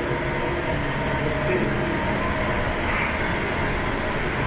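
Steady rushing noise of a commercial galley's ventilation and extraction hoods running, with a faint steady hum under it.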